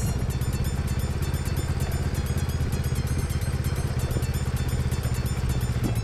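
Suzuki GS500E's air-cooled parallel-twin engine running steadily at an even speed while the motorcycle is ridden.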